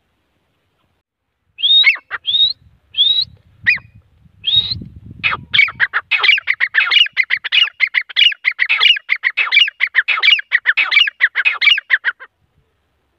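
Grey francolin calling: a few separate rising notes, then a fast, loud run of repeated calls that goes on for about seven seconds and stops near the end. A low rumble sits under the opening notes.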